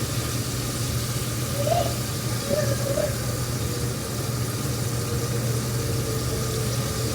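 Chicken frying in a pan of oil, a steady sizzle over a low steady hum.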